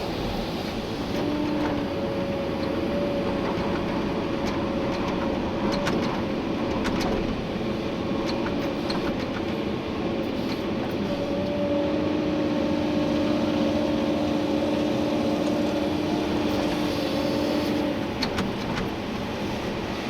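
Komatsu PC290-11 excavator's diesel engine and hydraulics working under load, heard from inside the cab. A steady whine rises out of the running noise for several seconds at a time, and there are a few scattered clicks and knocks.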